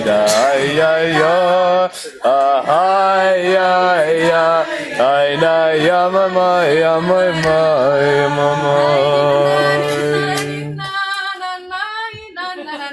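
Unaccompanied singing of a tune from the workshop's song booklet, the melody moving from note to note and then settling on a long held note; about eleven seconds in it drops to quieter, higher singing.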